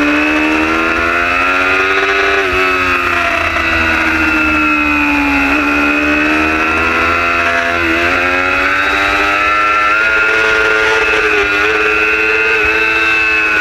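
Superbike's engine at race speed, heard from a camera mounted on the bike. Its pitch climbs and falls as the rider works the throttle through the corners, with about five sudden short drops.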